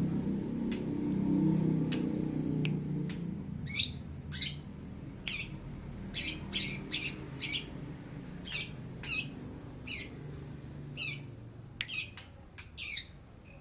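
A young long-tailed shrike giving a run of short, harsh calls, roughly one a second, starting about four seconds in. Each call sweeps quickly downward.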